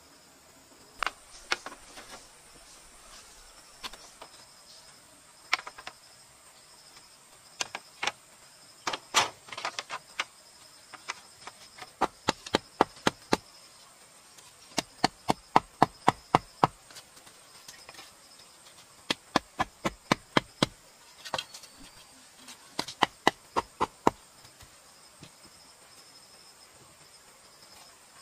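A short length of wood used as a mallet, knocking bamboo stakes into the ground in quick runs of several blows with short pauses between. A steady high insect drone runs behind it.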